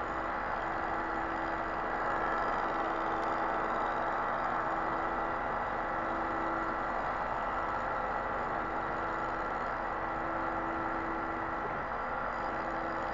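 Machine tool facing the deck of an aluminium ZAZ Tavria cylinder head, with a steady whir and cutting noise, to bring the argon-welded surface flat again.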